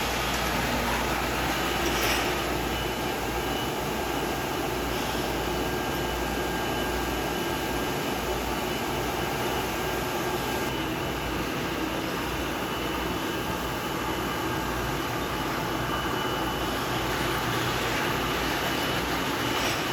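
Jam production line machinery running with a steady hum and hiss, overlaid by a faint steady high whine.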